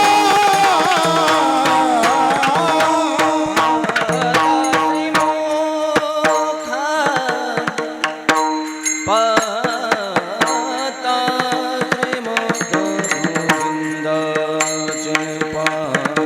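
Varkari kirtan music: a singer's drawn-out, wavering melodic line over mridang drum strokes and held drone notes.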